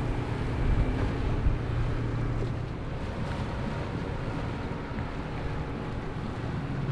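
Outboard motorboats running at speed, a steady engine drone with water rushing and splashing off the hulls as they slam through the waves, a little louder in the first second or two. Wind noise on the microphone.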